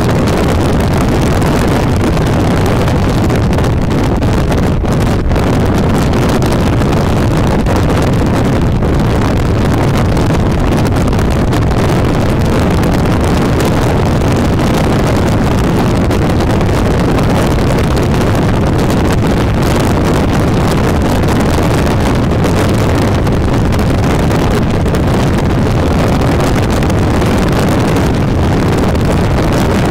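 Steady, loud rush of car road noise and wind, heard from inside the cabin of a car driving on a highway, with wind buffeting the microphone.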